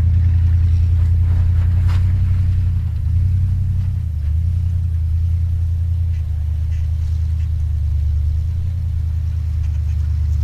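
Big-block V8 of a 1964 Dodge Custom 880 running with a steady low exhaust drone, its pitch shifting slightly three to four seconds in.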